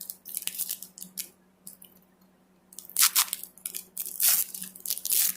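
Plastic foil wrapper of a baseball card pack crinkling and being torn open, in irregular crackly bursts, loudest about three seconds in and again near the end.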